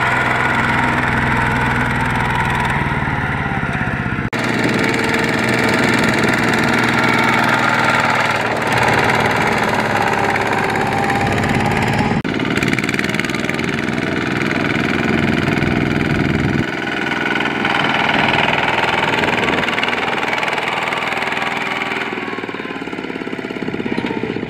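Single-cylinder diesel engines of two-wheel walking tractors running steadily while they pull loaded trailers, the sound changing abruptly at a few points.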